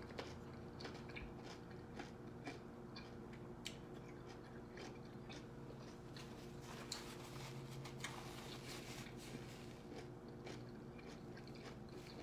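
Close-up chewing of a vegetable wrap with fresh crunchy vegetables: scattered small crunches and wet mouth clicks. A faint steady hum lies underneath.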